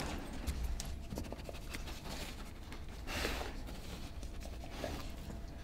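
Weimaraner detection dog sniffing at a hole in a wall around pipes: a few short, breathy sniffs and snorts, the strongest about three seconds in, with light rubbing and taps from its harness and paws. The dog is working a scent, searching for bats.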